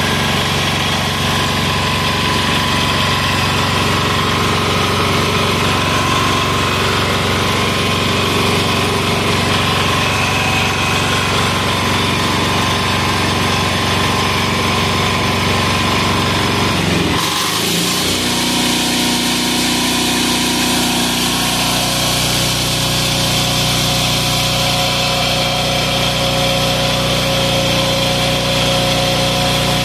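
186FA single-cylinder air-cooled diesel engine running steadily on citronella torch fuel, with leftover lamp oil still being purged from its fuel line. Just past halfway its note shifts as the throttle is brought down, and it settles into a steady, lower idle.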